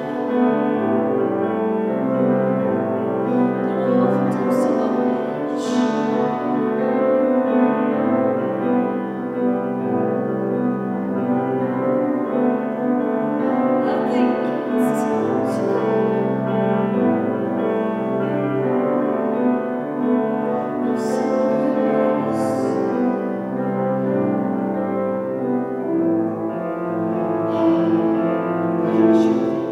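A woman singing to her own piano accompaniment, slow and sustained, with long held chords.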